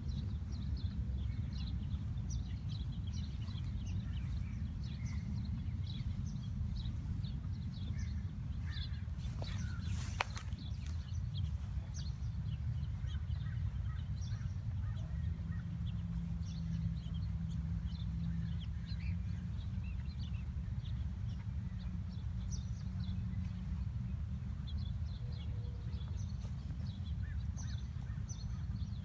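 Western bluebirds chirping, many short high calls scattered throughout, over a steady low rumble. There is a brief sharp knock about ten seconds in.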